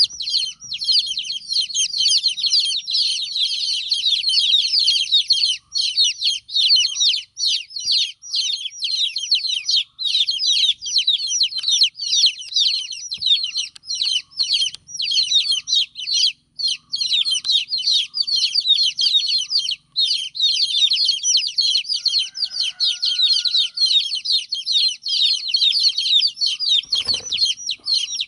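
A brood of baby chicks peeping loudly and without pause, many high, falling chirps overlapping one another. These are the cries of chicks whose mother hen is not with them. One or two faint knocks come near the end.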